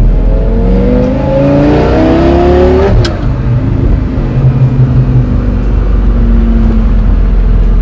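Lamborghini Gallardo V10 through a straight-piped X-pipe exhaust with the mufflers off, revving up under acceleration with its pitch rising for about three seconds. A sharp crack follows as it comes off the throttle, then lower, uneven running with popping from the exhaust.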